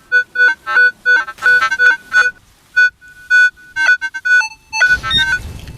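Metal detector giving short repeated target beeps as it is swept over the ground, several a second, then a different, longer two-note tone about four and a half seconds in. A low rustling noise follows near the end.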